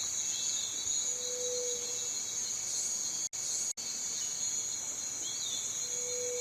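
Cicadas singing: a steady, high-pitched shrill drone. Near the middle it cuts out for an instant twice, about half a second apart.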